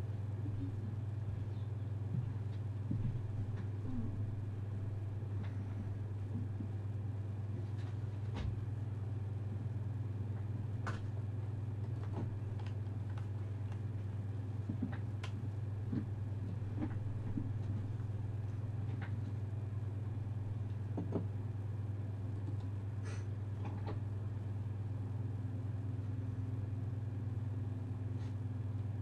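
A steady low hum, with scattered faint clicks and small knocks over it.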